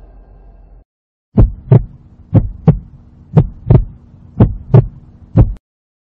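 Heartbeat sound effect: four lub-dub double thumps about one a second, then a single beat, over a faint low hum. A droning sound cuts off just before the beats begin.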